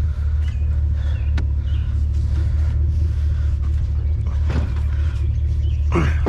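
Truck engine and road rumble heard from inside the cab, a steady low drone.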